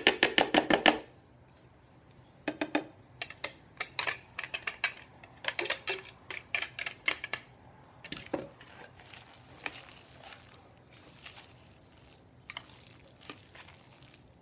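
A hard plastic container knocked quickly and repeatedly against a plastic microwave pressure-cooker pot to shake out shredded chicken, the run of knocks stopping about a second in. A spoon then clicks and scrapes in the pot as the chicken is stirred into the pasta, growing fainter after about eight seconds.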